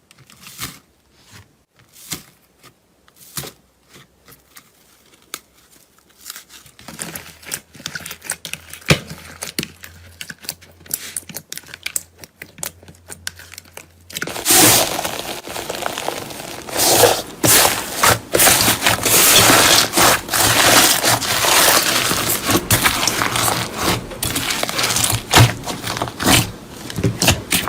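Crunchy material being pressed and broken apart, crackling and crunching. Sparse crisp clicks at first, then about halfway through a denser, louder run of crackling.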